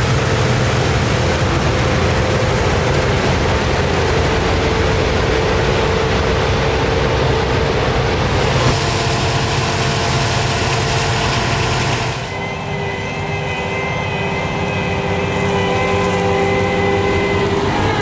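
Claas Lexion combine harvesters working in standing wheat, with a tractor and chaser bin alongside: a steady, heavy engine drone under a broad, even rushing noise from the machines. About twelve seconds in the sound drops a little and steady high whines stand out.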